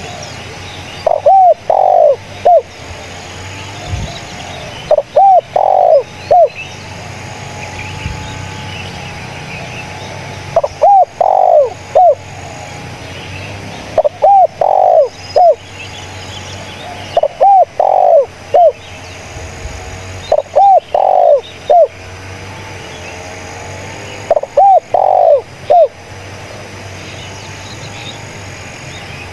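Spotted dove (tekukur) cooing: about seven phrases, a few seconds apart, each of three or four short, arched coo notes with the middle note loudest.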